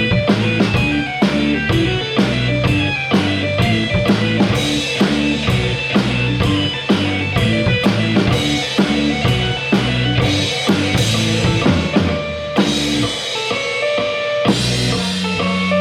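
Rock drum kit playing a steady groove of kick, snare and cymbals along with bass and guitar parts, with a lighter passage near the end.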